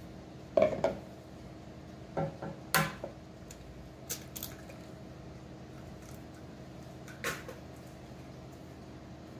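Eggs being cracked and handled in a plastic measuring cup: a few sharp taps and knocks, most in the first three seconds, a couple near four seconds and one more around seven seconds.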